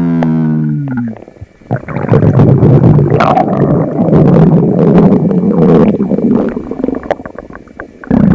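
A person's stomach rumbling, loud. A pitched gurgle slides down in pitch over about the first second, then after a short pause a long, rough rumble runs for several seconds and fades near the end.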